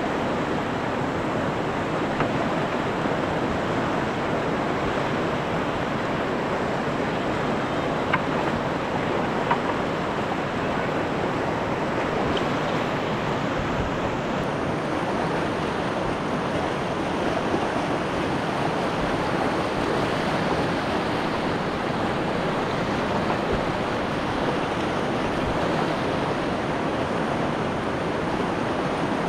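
Steady rush of white water pouring over a river rapid, close to the microphone, with a few faint ticks.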